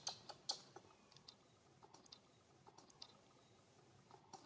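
Near silence broken by faint, short clicks, several close together in the first second and then a few scattered ones.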